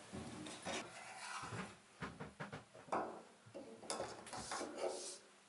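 Fuel gauge sender unit being drawn out of the top of a stainless steel diesel tank: irregular rubbing and scraping with light knocks as the unit and its float rod are handled against the tank fitting and the surrounding plywood.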